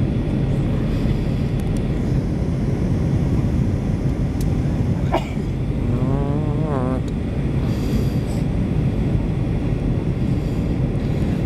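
Steady cabin noise of an airliner in flight, a constant low rumble. About five seconds in there is a single click, and just after it a brief wavering pitched sound.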